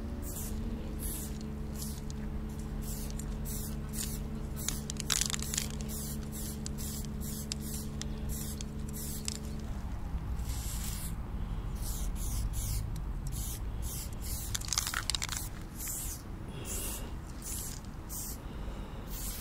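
Aerosol spray-paint can hissing in many short bursts, about one or two a second, with a few longer blasts, as graffiti is sprayed. A steady low hum runs underneath and stops about halfway through.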